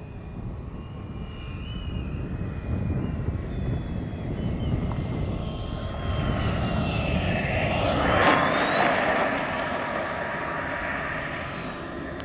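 Turbine engine of a radio-controlled jet airplane passing by: a high whine and rushing jet noise that build up, are loudest about eight seconds in, then fade as the whine drops in pitch.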